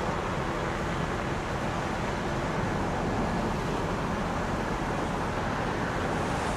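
Steady outdoor background noise, like distant road traffic.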